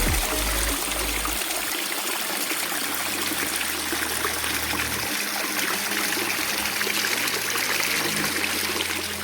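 Waterfall running: a steady rush and splash of falling water.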